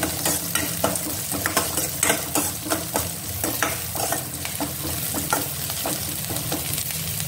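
A spatula scrapes round a stainless steel pan in repeated strokes while a tempering of mustard seeds, chana dal, urad dal, curry leaves and green chillies sizzles in hot oil.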